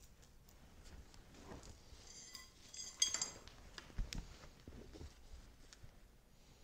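Steel chainsaw chain links clinking and rattling as a loose chain is handled on a concrete floor, with the sharpest clinks about three seconds in and a dull thump about a second later.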